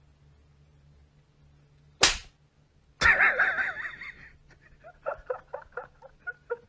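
A sharp smack, then a loud wavering cry from a cat, followed by a run of short quick mews at about four a second as a kitten and an adult cat squabble.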